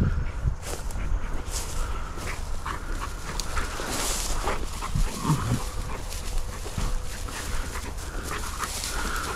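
Hunting dog panting and sniffing as it works for scent close by, with dry grass rustling.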